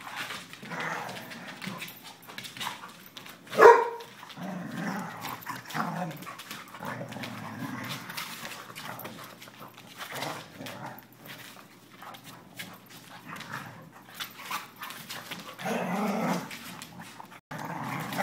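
Two dogs play-fighting: growling on and off, with one loud, sharp bark a little under four seconds in.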